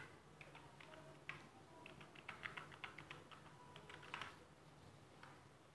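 Faint typing on a computer keyboard: a quick run of keystrokes for about four seconds, then a single click about a second later, as a username and password are entered.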